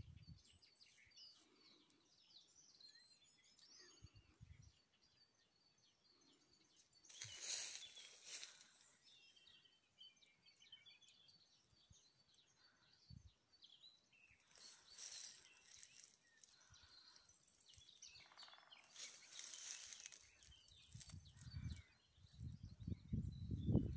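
Faint outdoor ambience with scattered small birds chirping. A few brief noisy swells pass, like gusts of wind through the branches, and a low wind rumble on the microphone builds near the end.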